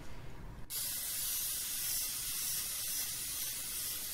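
Aerosol cooking spray hissing in one long steady spray that starts under a second in, greasing a glass baking dish.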